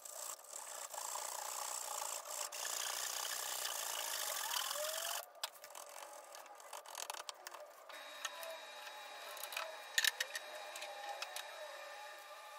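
Japanese pull saw laid flat, flush-cutting wood with quick, continuous rasping strokes that stop abruptly about five seconds in. A few sharp clicks follow later.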